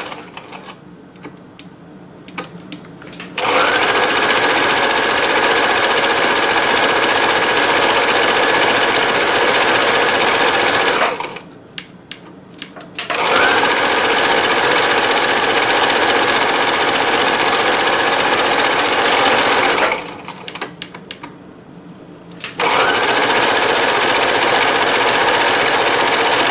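Husqvarna Viking 980 sewing machine stitching through denim in three runs of several seconds each, its motor giving a steady whine over the needle's rapid chatter. It stops twice for a couple of seconds, with small handling clicks in the pauses.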